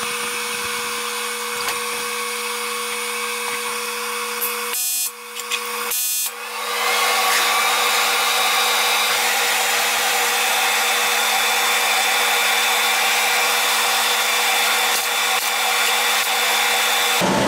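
Primeweld TIG325X welding machine's cooling fan running: a steady air rush with a constant hum. It drops out briefly twice about five to six seconds in and then comes back louder.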